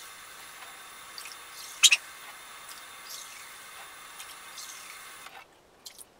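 Water running steadily, with a few light metal clicks. The running cuts off suddenly about five seconds in.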